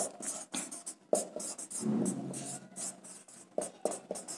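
Writing by hand: a quick run of short, scratchy strokes, about a dozen over four seconds.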